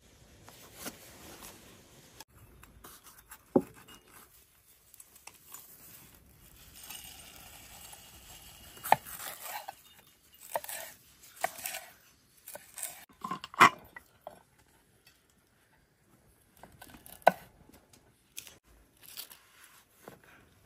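Food-prep sounds: scattered knocks and clinks of a knife and utensils on a wooden cutting board and against bowls and jars, with a stretch of soft rustling about a third of the way in. A few sharp knocks stand out.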